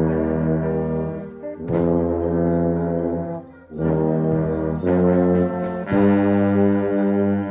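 St Petersburg 202 LP tuba playing a line of long, low held notes, with brief breaks for breath about two and four seconds in and a few quicker notes around five seconds in.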